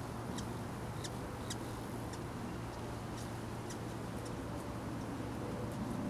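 Short, thin, high-pitched bird chirps, about ten of them at uneven spacing, roughly two a second, over a steady low hum.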